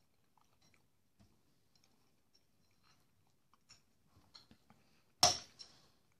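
Soft chewing and small clicks of a metal fork, then a sharp clink of the fork against the glass plate about five seconds in, with a softer second clink just after.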